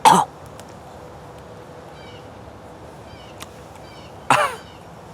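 Two short pitched vocal sounds from a man eating a live crawdad, one at the start and one about four seconds in, each falling in pitch. Faint bird chirps come in between.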